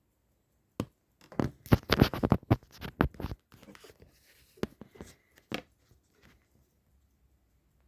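A quick, irregular run of clicks and knocks lasting about two and a half seconds, then a few scattered clicks: hands turning and working parts of a Pfaff 204 sewing machine.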